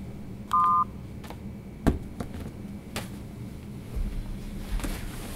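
A mobile phone's keypad beep: one short two-note electronic tone as a button is pressed on the handset, followed by a few faint clicks.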